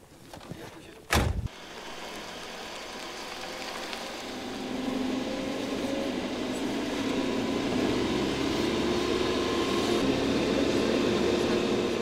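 A vehicle door slams shut about a second in. Then the UAZ off-road vehicle's engine runs, heard from inside the cab, and grows louder as the vehicle drives off and gathers speed.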